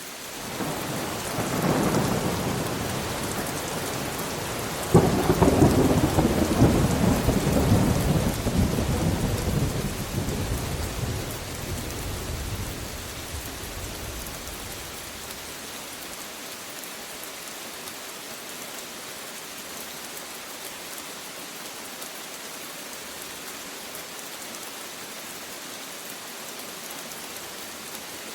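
Steady rain with a thunderclap: a rumble builds about a second in, then a sharp crack about five seconds in sets off a loud rolling rumble that dies away over the next ten seconds, leaving the rain hiss alone.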